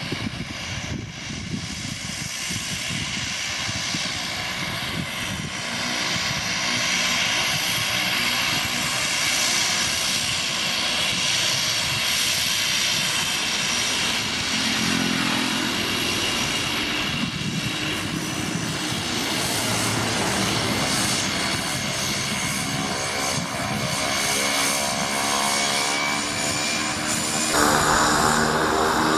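Cessna 208B Grand Caravan EX amphibious floatplane's turboprop engine and propeller running at taxi power: a steady turbine whine over the propeller drone, its pitch shifting slightly as the plane moves. Near the end the sound changes abruptly to a more hissing, noisier engine sound.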